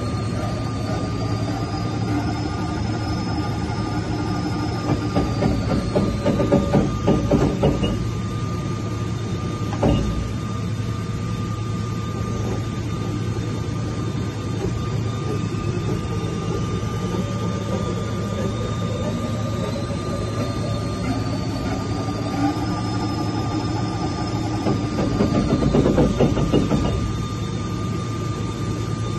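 Weiler E90 flatbed lathe spindle turning its large four-jaw chuck, over a steady machine hum and a constant thin tone. Twice the drive's whine rises in pitch, holds, then falls away, and each fall comes with a few seconds of louder clattering. There is a single knock about ten seconds in.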